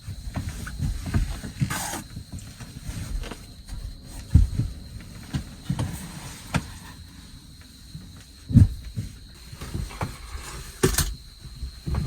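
Irregular low thumps and knocks, with a few short scrapes and clatters, of things being handled and shifted around inside a kei truck's camper box. The two sharpest clatters come about two seconds in and near the end, and the heaviest thumps fall around the middle.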